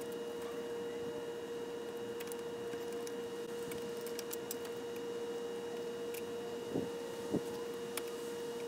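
A steady hum with a constant pitch, and three short light knocks about seven seconds in as parts are handled around the radiator and transmission cooler.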